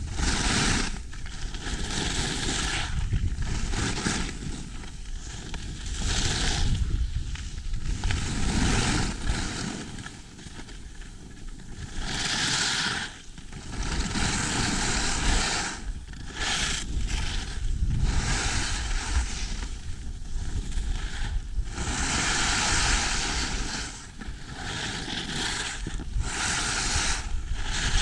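Skis carving and scraping over packed snow through a run of turns: a hiss that swells and fades every two or three seconds, with wind rushing over the microphone.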